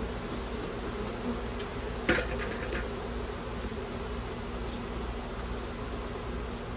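Honeybees buzzing steadily around an opened hive, a continuous hum of many wings. About two seconds in there is one sharp knock, followed by a few lighter clicks.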